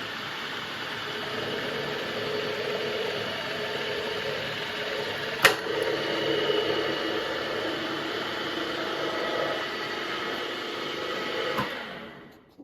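HBM 40-H drill-mill's oil-bath geared headstock running, a steady mechanical whir with several steady tones. A sharp click comes about halfway through, after which the tones shift. Near the end the machine is switched off and runs down within about a second.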